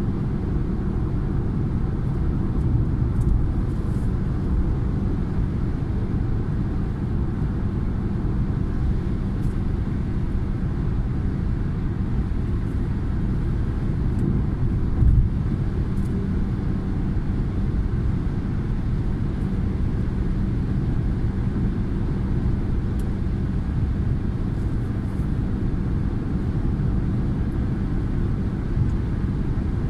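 Steady road and engine noise heard inside a car cruising at motorway speed, a low rumble of tyres and engine, with one brief thump about halfway through.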